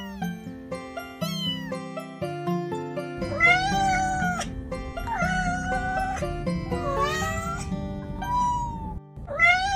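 Cat meowing repeatedly over background music: two short falling meows early on, then a run of longer, drawn-out meows from about three and a half seconds in.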